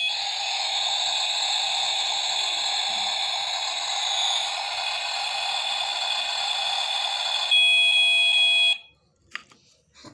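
Battery-powered toy kitchen stove, switched on, playing its electronic cooking sound effect: a steady hissing noise with high electronic tones over it. About seven and a half seconds in the hiss stops and a louder steady beep tone sounds alone for about a second before cutting off suddenly.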